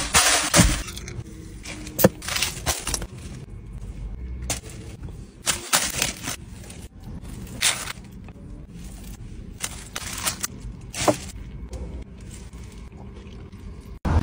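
Plastic bag and food wrappers crinkling and crackling in sharp, irregular bursts, with crunchy bites into a fried chicken and fries wrap.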